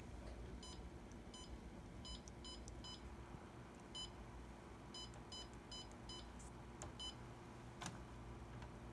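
Xerox ConnectKey multifunction printer's touchscreen giving a short, identical key-press beep for each tap as a user name and password are typed, about a dozen faint beeps at an uneven typing pace.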